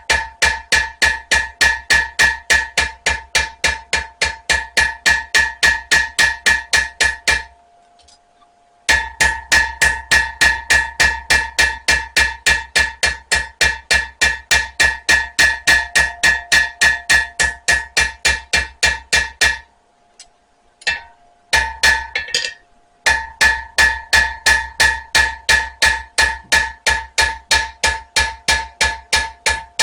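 Blacksmith's hammer striking a spring-steel knife blade on the anvil in a steady rhythm of about four blows a second, each blow ringing. This is cleanup hammering of the forged blade. The hammering stops twice, briefly about a third of the way in and for a few seconds past the middle.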